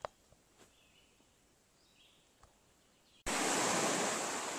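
Near quiet with a few faint ticks, then about three seconds in a sudden switch to a steady loud rush of small lake waves breaking on a sandy beach.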